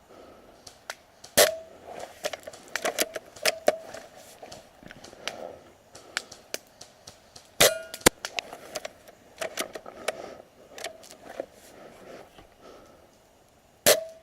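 Airsoft gun firing single shots: a sharp crack about a second and a half in, two more close together around the middle, and one near the end. Many fainter clicks and crunches come in between.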